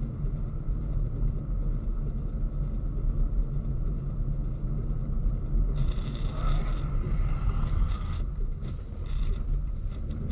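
Steady low road-and-engine rumble of a moving car, heard from inside the cabin. A brighter hiss joins it for about two seconds around six seconds in.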